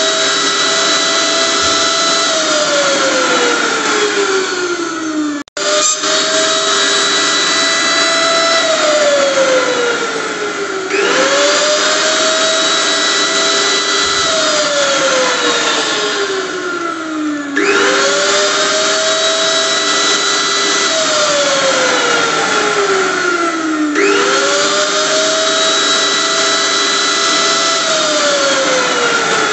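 Electric blender motor running loud and whirring, speeding up, holding, then slowing down, over and over about every six seconds. The sound cuts out for an instant about five seconds in.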